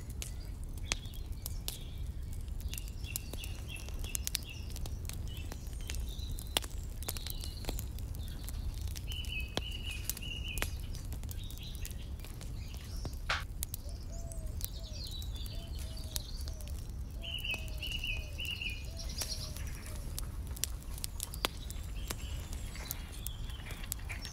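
Songbirds chirping, with two rapid high trills about 9 and 17 seconds in and a run of short lower chirps in between, over a steady low rumble and scattered sharp clicks.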